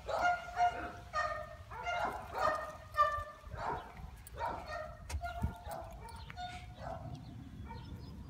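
Dogs barking repeatedly, short high yapping barks about twice a second, growing fainter after about five seconds.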